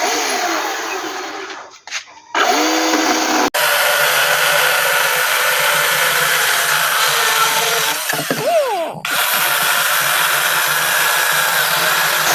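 Small battery-powered chainsaw cutting wood. It is revved briefly twice with the motor pitch sliding, then runs in one long steady cut. The cut dips once around eight seconds in, the motor pitch sliding down and back up before it carries on.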